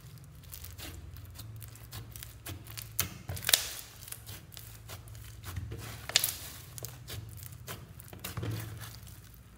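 White foam-bead slime (floam) being stretched, folded and pressed by hand, giving a steady run of crackles and small pops from the foam beads, with two louder crackles about three and a half and six seconds in.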